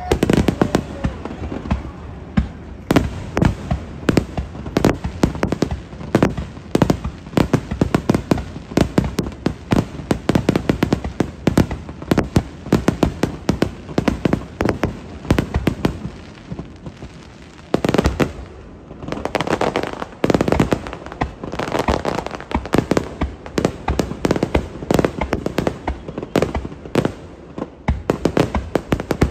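Fireworks display: a rapid barrage of aerial shells bursting, many bangs every second. The bangs thin briefly about two-thirds of the way through, then pick up again with a denser crackling stretch.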